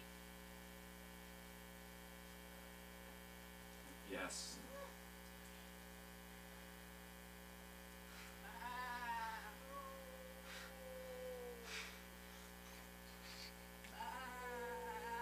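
Steady electrical mains hum from the stage's sound system. Faint pitched sounds lie over it: a quick rising sweep about four seconds in, and slow sliding tones around the middle and again near the end.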